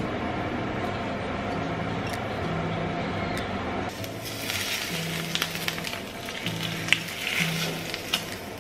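Hot oil poured over scallions on a steamed fish, sizzling with sharp crackling pops; the sizzle starts about halfway through.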